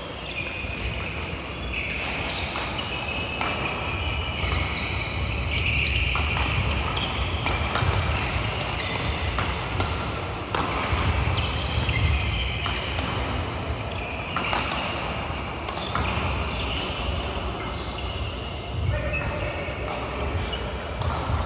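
Badminton hall din: rackets striking shuttlecocks and court shoes squeaking and thudding on the mats from play on the surrounding courts, many short knocks and squeaks overlapping.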